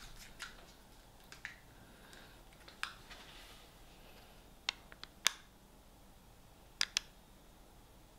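Small plastic dip-sauce pots clicking and tapping as they are handled and set down: a few single clicks, then a quick run of three and a close pair.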